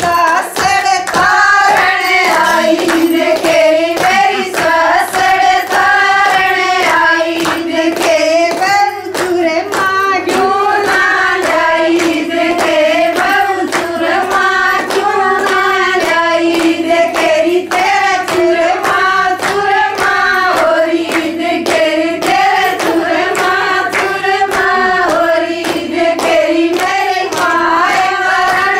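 A group of women singing a Haryanvi folk song unaccompanied, keeping time with steady rhythmic hand clapping.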